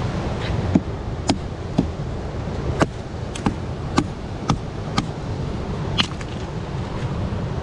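About nine sharp knocks or taps, most about half a second apart with a few longer gaps, over a steady rush of wind and surf.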